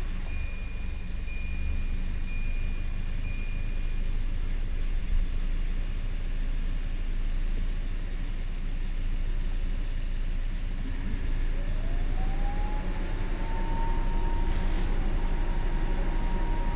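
1990 Volvo 240 DL's four-cylinder engine idling, heard from inside the cabin with the window open, while a warning chime dings repeatedly for the first few seconds. About eleven seconds in, a fan starts up, its whine rising in pitch and then holding steady.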